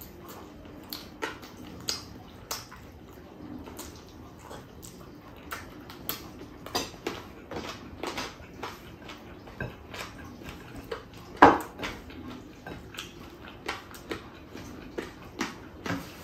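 Close-up eating sounds of a person eating chicken adobo and rice by hand: irregular chewing, lip smacks and sucking on the meat, with scattered clicks. One much louder sharp click about eleven and a half seconds in.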